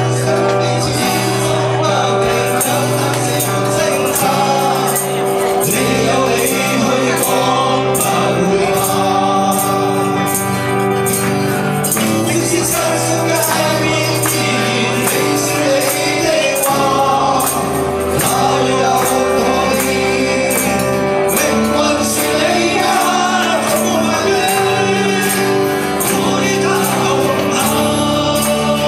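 Male vocalists singing a Cantonese pop-rock song together over a live band, with acoustic and electric guitars and a steady beat.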